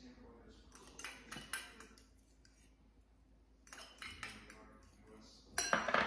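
Metal fork clinking and scraping against a glass bowl while mixing mayonnaise into mashed hard-boiled eggs. The clinks come a few at a time with a quiet gap in the middle, and the loudest come near the end.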